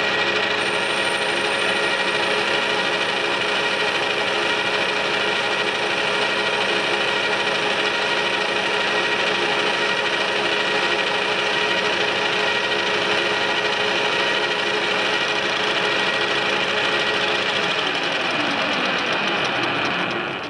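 Metal lathe running under a boring cut, a boring bar cutting inside the bore of a part in the chuck. It gives a steady machine whine with several constant tones over a cutting hiss.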